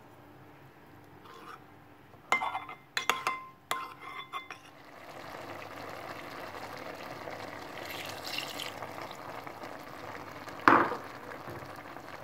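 A spoon clinking sharply against a ceramic bowl, several quick strikes about two seconds in, as a cornstarch-and-milk slurry is stirred. Then a steady bubbling from a stainless-steel pot of lentil curry simmering on the stove, with the slurry poured in and one loud knock near the end.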